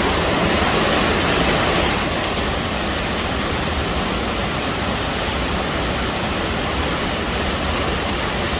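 Banias Waterfall pounding into its deep pool: a steady rush of falling water that eases slightly about two seconds in.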